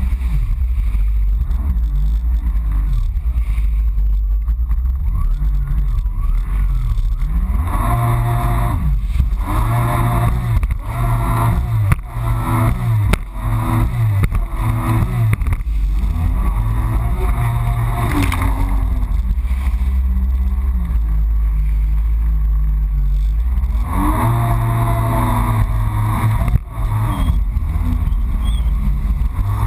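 Yamaha FX HO Cruiser jet ski's four-stroke engine running under way over a steady low rumble. It revs up and down in repeated rising and falling sweeps through the middle of the stretch, and again near the end, as the throttle is worked.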